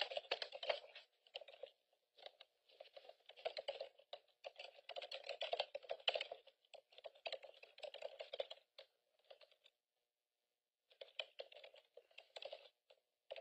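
Faint typing on a computer keyboard in uneven bursts of clicks, stopping for about a second near the end and then starting again.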